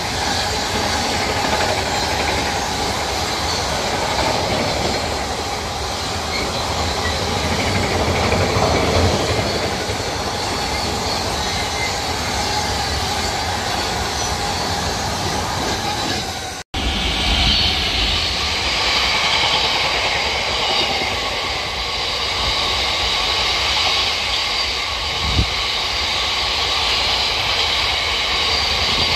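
Freight wagons rolling past on the rails with a steady rumbling wheel noise: first a train of loaded double-deck car-carrier wagons, then, after a sudden cut just past halfway, a train of cement tank wagons with a steadier high hiss. A single sharp knock comes near the end.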